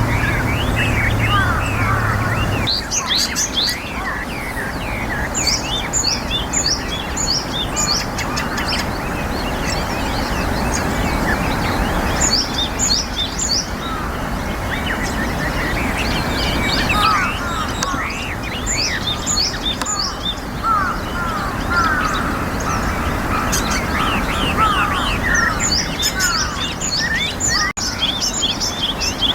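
Japanese tit singing, repeated runs of short, high, quick notes, against other birds chirping and a steady background hiss.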